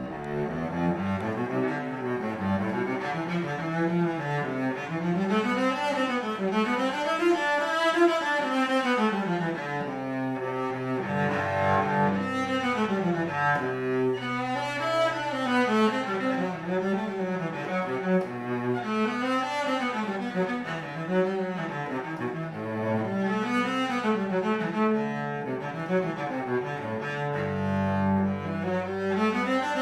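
A 2015 Frederich Holtier cello, modelled after an Alessandro Gagliano, bowed solo in flowing figures that rise and fall continuously, with a few sustained low notes.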